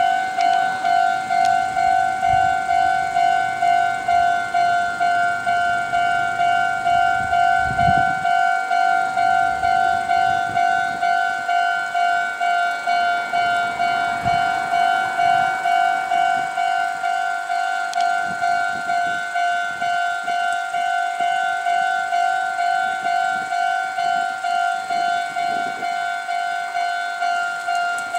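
Electronic warning bell of a Japanese railway level crossing ringing steadily, one clanging tone repeated about one and a half times a second, warning that trains are approaching. A train passes under the bell, its rolling noise rising around the middle.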